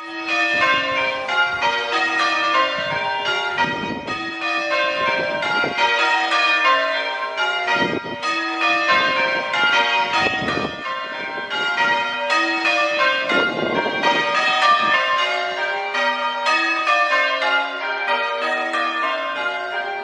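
Change ringing on a ring of six church bells, tenor 7-3-11 cwt in B-flat, with the bells struck one after another at a steady, even pace. The ringing cuts in suddenly at the start.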